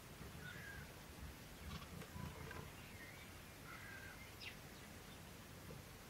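Faint calls of wild garden birds: a few short, high chirps scattered through, including two quick sharp notes, over a low steady background rumble.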